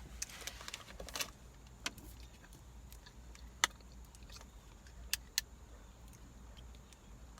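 Eating sounds: a quick run of small clicks and crinkles in the first second or so, then a few single sharp clicks, over a steady low hum.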